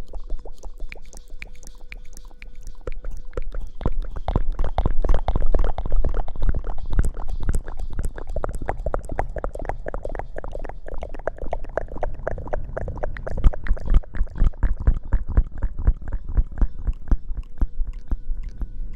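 Close-microphone ASMR rustling: a dense run of rapid crackles and scratches, louder from about four seconds in.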